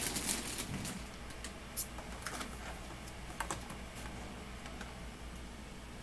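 Clear plastic clamshell muffin container being handled: scattered sharp plastic clicks and crackles, the loudest about two seconds in.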